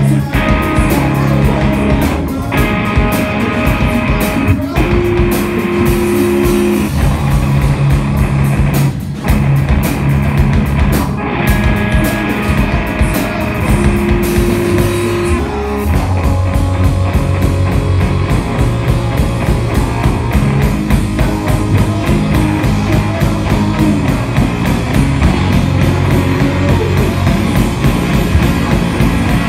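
Live rock band of electric guitar and drum kit playing loudly, with no vocal heard; the arrangement shifts about halfway through, with a heavier low end.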